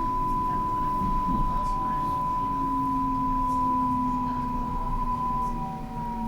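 Electric commuter train rumbling, with a steady high-pitched whine and a lower hum over it; the whine slides down slightly near the end.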